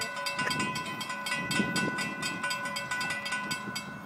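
Railroad grade-crossing warning bell ringing in rapid, evenly spaced strokes as the crossing gates come down. The ringing cuts off at the very end.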